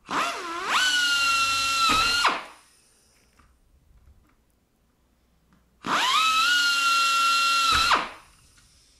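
Pneumatic air drill run twice, each time for about two seconds, with a high whine that rises as it spins up and dips as it is let off. It is match drilling holes through a pre-punched aluminium doubler into the aluminium spar beneath.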